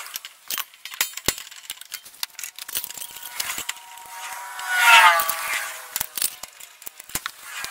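Metal parts of a riding mower's belt linkage being handled by hand underneath the machine: scattered clicks, taps and light rattles, with a short squeak falling in pitch about five seconds in.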